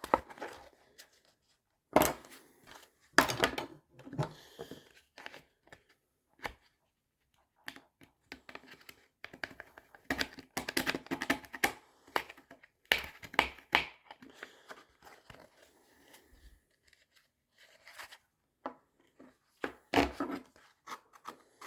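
Hand sawing through a hard plastic case, short scraping strokes coming in irregular bursts with pauses between.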